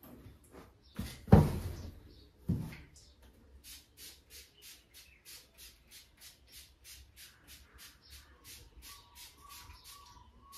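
Small fine-mist pump spray bottle squirted over and over, short hisses about three a second, misting vinegar onto a fabric car boot mat. Near the start, two heavy thumps, the first the loudest.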